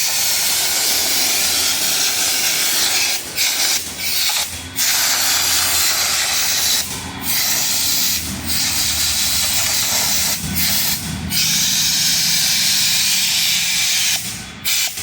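High-pressure water jet spraying with a loud steady hiss, cut short by several brief breaks, over a low machine hum.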